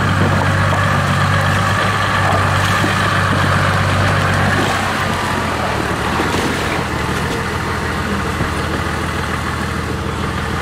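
Toyota Land Cruiser HDJ80's 4.2-litre turbo-diesel engine running steadily, a little higher for the first four and a half seconds, then settling lower.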